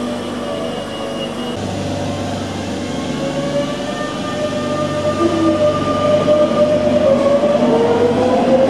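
Electric passenger train pulling out of a station: its traction motors whine in several tones that rise slowly in pitch and grow louder from about halfway through as the train speeds up.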